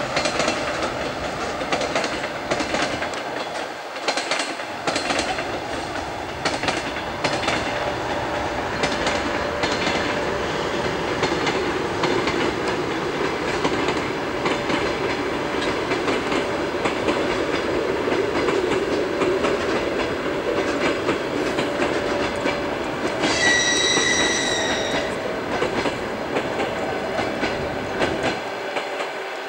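Passenger train hauled by an EP1M electric locomotive rolling past, with steady wheel noise and clicking over the rail joints. A little over three-quarters of the way through, the locomotive gives one short high-pitched whistle.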